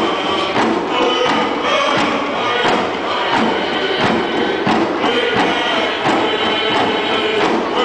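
Group singing a canoe family's dance song to hand drums, which beat evenly about twice a second.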